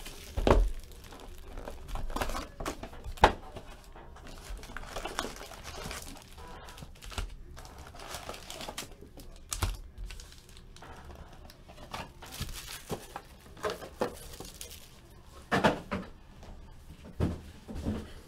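Plastic shrink wrap and wrapped trading-card packs crinkling and tearing as a card box is unwrapped and its packs handled, in irregular bursts with a few sharp knocks, the loudest about three seconds in.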